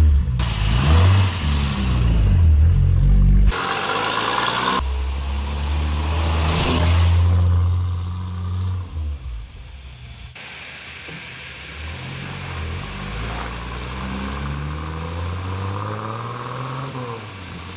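Toyota Corolla rally car's twin-cam four-cylinder engine (2TG head on a 1800cc 3T block) revving and accelerating, its pitch rising and falling through the revs. Several short clips cut abruptly from one to the next, and after the last cut, about ten seconds in, the engine is quieter.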